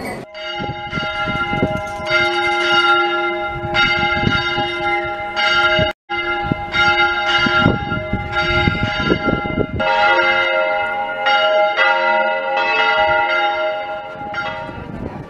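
Church bells ringing a peal, struck in quick succession so the ringing tones overlap, with a brief break about six seconds in.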